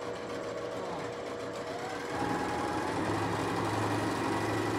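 Singer domestic sewing machine running steadily, stitching a seam through quilted fabric and lining. About two seconds in its tone shifts and it gets a little louder.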